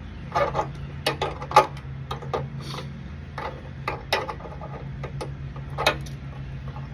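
Irregular metallic clicks and knocks of hand tools working a rusted compressor loose from an air conditioner's frame, over a steady low hum.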